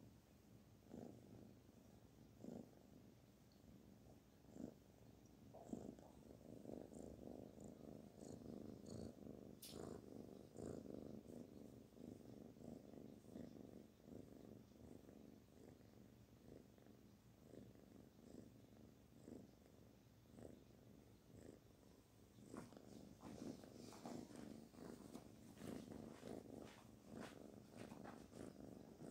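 Kitten purring faintly while being stroked, a low fluttering purr that comes and goes at first, settles in after several seconds, and grows stronger near the end.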